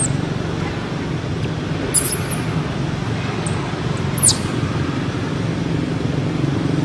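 A baby macaque giving a few brief, very high squeaks that fall in pitch, about two and four seconds in, over a steady low background rumble.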